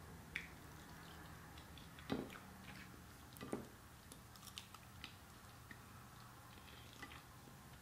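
Faint eating sounds: chewing with scattered small clicks from a fork and a plastic spoon, and a few brief louder mouth sounds.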